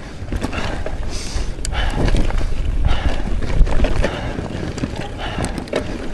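Transition Spur mountain bike ridden hard down an enduro stage: tyres running over dirt and roots, with irregular clattering knocks from the bike over rough ground and wind on the microphone. The rider is breathing hard.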